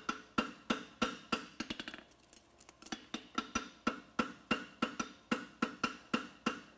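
Hand hammer striking a glowing steel bar shoe on the anvil horn, about three ringing blows a second, with a short pause about two seconds in before the strokes resume. The blows are forge-welding the frog plate's seams together.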